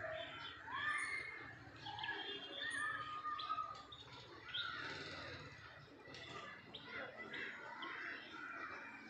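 Several birds chirping and calling outdoors: many short, quick whistled notes overlapping throughout, over a faint low background rumble.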